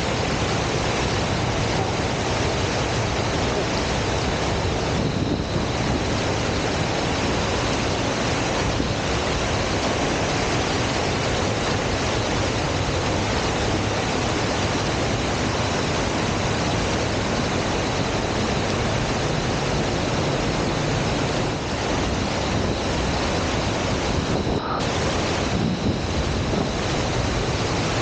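A waterfall's falling water: a steady, unbroken rushing noise.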